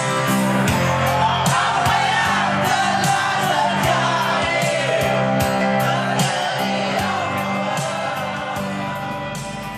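A group of young men singing along into a microphone over backing music with a steady beat, growing quieter near the end.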